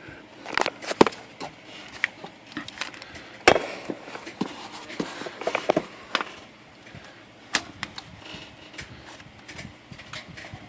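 Scattered small clicks and knocks of hand tools and parts being worked inside a Royal Quiet De Luxe manual typewriter's margin mechanism, irregularly spaced, with the sharpest knocks about one and three and a half seconds in.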